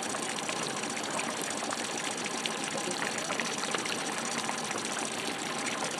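Steady rush of fast, high river water from the flooding Arkansas River.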